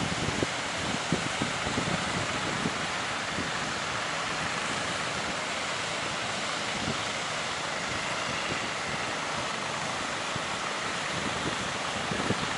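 Steady rushing of breaking surf, with wind buffeting the microphone in gusts, mostly in the first few seconds and again near the end.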